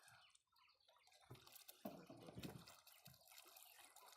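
Faint water dripping and trickling, with faint voices in the background.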